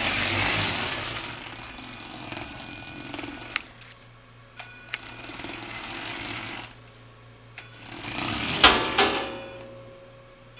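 Small electric drive motors of a Thunder Tumbler RC toy, switched by an Arduino motor shield, whirring in bursts with short pauses as it runs a programmed forward, reverse and turn sequence, its plastic wheels rolling on a wooden floor. A few light clicks in the middle, and one sharp, loud knock about three-quarters of the way through.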